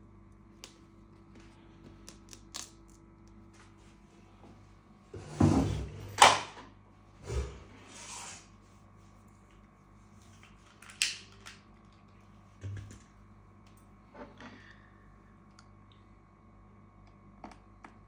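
An aluminium MacBook Air laptop being handled on a tabletop: a cluster of knocks and scraping about five to six seconds in, more knocks shortly after, then scattered light taps and clicks as tools are moved.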